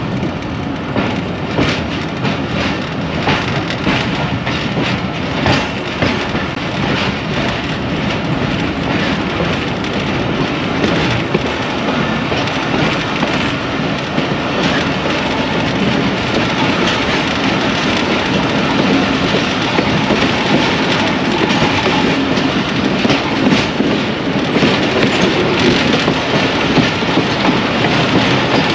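Passenger train running along the track: a steady rumble with the wheels clicking over the rail joints.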